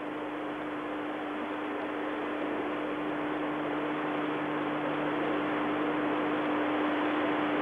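Steady hiss with a constant low electrical hum, slowly getting a little louder: the background noise of an old videotaped television broadcast.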